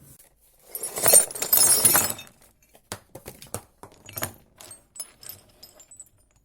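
Loose metal pieces rattling together for about a second and a half, then a run of separate light clinks as pieces knock against each other or a hard surface.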